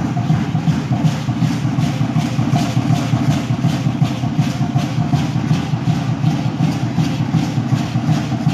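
Aztec dance accompaniment: drum and rattles beating a fast, even rhythm of about three strokes a second over a heavy, continuous low rumble.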